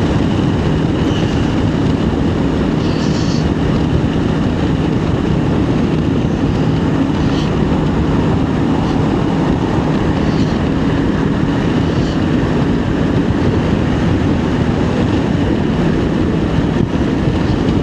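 Steady rush of wind over a motorcycle helmet, with the Honda NX500's parallel-twin engine droning underneath, cruising at 110 km/h in sixth gear with the rider crouched behind the standard screen.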